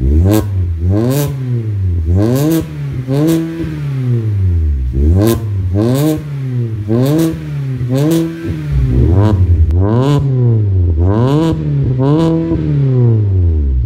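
2016 Mazda 3's engine blipped repeatedly in Park through an aftermarket full exhaust system with dual exits. The revs rise and fall about once a second, with a sharp crack near the top of most blips.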